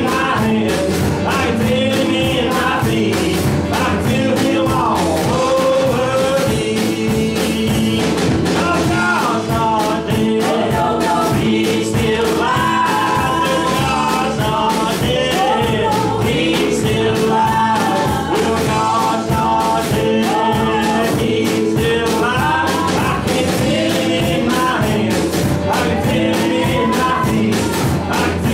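A worship band playing a gospel song live: a man singing the lead over strummed acoustic guitar, electric guitar and keyboard, with women's voices singing along, over a steady beat.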